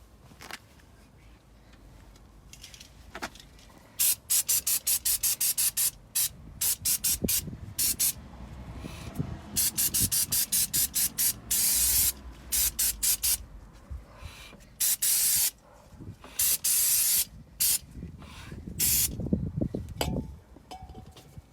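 Aerosol spray can, likely brake cleaner, sprayed in a quick run of short hissing blasts, about five a second, then several longer one-second sprays while cleaning the brake parts.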